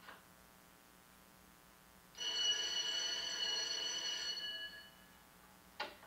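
Electric school class bell ringing for about two seconds, starting about two seconds in, then dying away; a short knock follows near the end.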